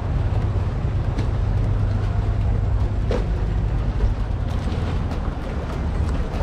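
Motorboat engine running at idle, a low steady hum.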